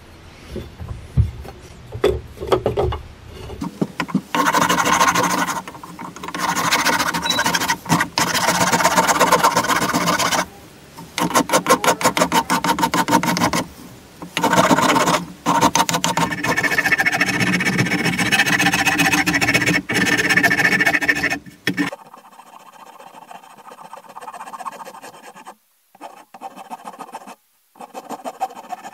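Hand rasp scraping over wood in runs of quick strokes, each run a second or two long with short pauses between them. The sound drops off a little after two-thirds of the way through, leaving only faint, sparse scraping.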